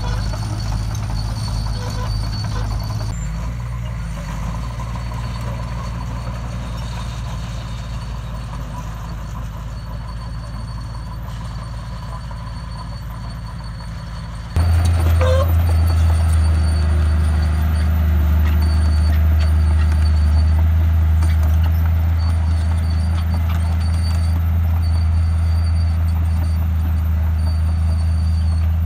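Diesel engine of a small Komatsu crawler bulldozer running steadily as it grades dirt, a low even drone. About halfway through the drone abruptly becomes much louder.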